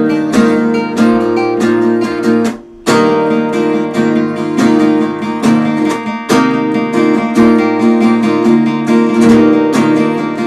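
Acoustic guitar strummed in steady chords, with a brief break about two and a half seconds in before the strumming resumes.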